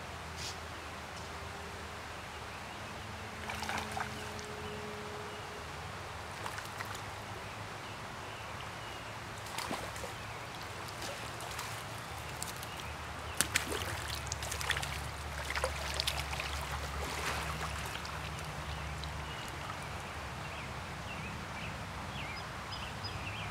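Small stream flowing steadily, with a run of splashes and small knocks about halfway through as a hooked wild brown trout is brought to the net.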